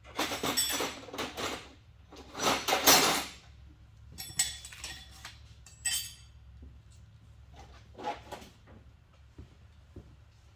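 Metal tools and parts clinking and rattling as they are handled, in several separate bursts, the loudest and longest in the first three seconds, then shorter ones further apart.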